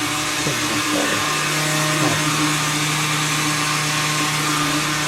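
Keurig coffee maker running with a steady motorised whir and hum, the pitch wavering briefly in the first couple of seconds.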